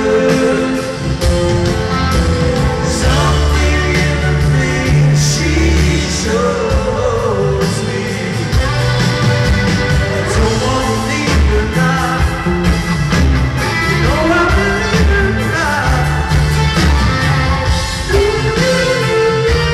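Live rock band playing a ballad, with a male lead vocal over acoustic guitar, bass and drums, heard from the crowd in a large arena.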